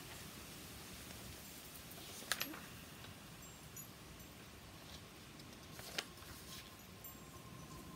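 Sheets of printer paper being handled and swapped: two short papery rustles, about two seconds in and again near six seconds, over a low steady background hiss.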